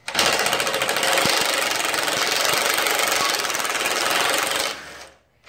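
Cordless DeWalt impact driver hammering steadily as it backs a long screw out of a wooden shipping crate, then winding down near the end.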